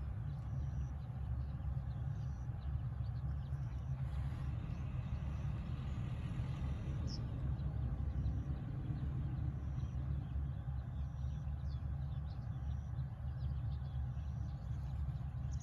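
Steady low rumble of wind buffeting the microphone outdoors, fluttering quickly in level, with a faint short high tone repeating about every second and a half.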